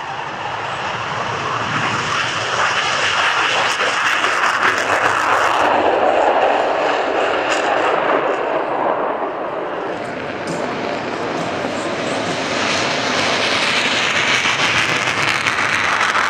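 Panavia Tornado GR4's two RB199 afterburning turbofans at full reheat on takeoff and climb-out, a loud continuous jet rush. The pitch falls about five seconds in as it goes past, and the noise swells again near the end.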